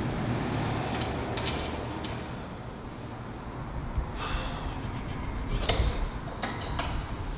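Metal knocks and clanks from a hip thrust machine being worked through reps, several sharp knocks spaced a second or more apart, over a steady low rumble.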